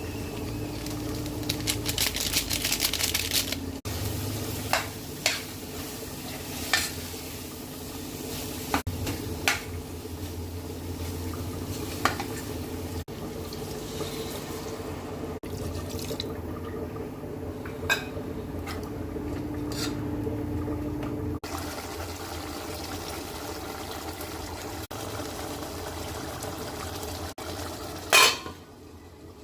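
Cooking sounds: a utensil stirring and clinking against pots and dishes, with scattered sharp clinks over a steady low hum and one louder clank near the end.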